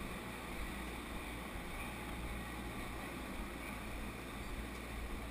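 Steady, muffled low rumble of go-kart engines idling in a pit lane.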